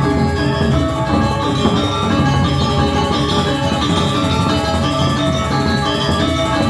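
Balinese gamelan playing: bronze metallophones and gongs ringing in a dense, rhythmic pattern with drums underneath.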